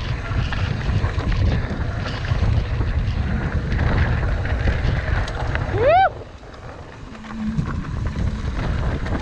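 Wind buffeting an action camera's microphone over the rumble of a mountain bike rolling fast down a dirt singletrack. About six seconds in, a short high whoop rises and falls in pitch, and the rush then drops off briefly.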